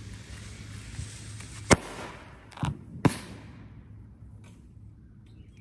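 Parachute firework going off: a hiss that fades away, and three sharp pops within about a second and a half, the first the loudest.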